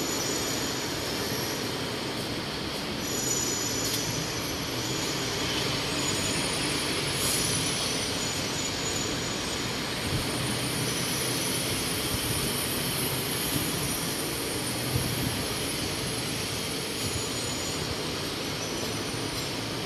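Steady city background noise on an open elevated walkway, with a faint high whine that rises and falls twice.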